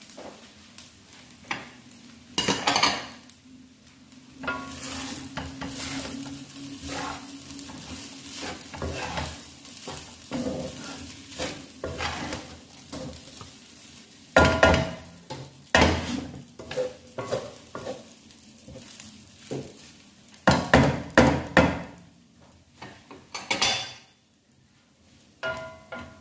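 Wooden spatula stir-frying rice in a honeycomb-textured stainless-steel wok, scraping and knocking against the pan in uneven spells, with a light sizzle. The strokes are loudest a few seconds in, about halfway through and again about four fifths in, and go quieter near the end.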